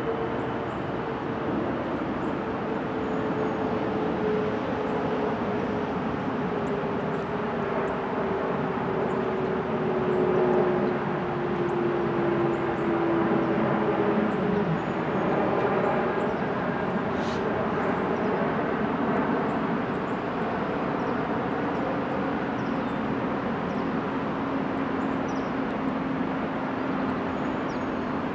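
Distant engine drone over a steady outdoor rumble, its pitch falling slowly over the first fifteen seconds and the whole swelling a little in the middle before a lower, steady drone carries on.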